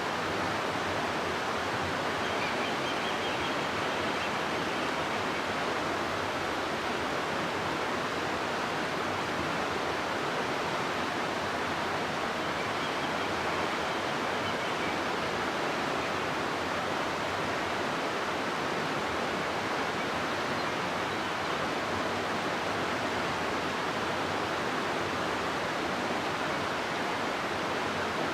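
River water rushing steadily through a rocky gorge, an even, unbroken roar of flowing water.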